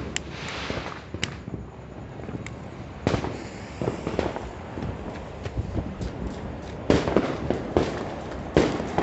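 Firecrackers and fireworks going off at irregular intervals: scattered single sharp bangs and pops over a steady background rumble, more of them from about three seconds in.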